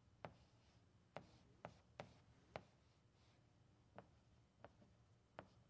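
Chalk tapping and scraping on a chalkboard as letters are written: about eight faint, sharp taps at irregular intervals.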